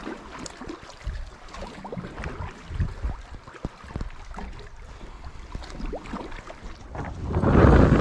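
Lake water lapping and slapping against a kayak hull and sandstone rocks in small, irregular splashes. About seven seconds in, loud wind buffeting the microphone takes over.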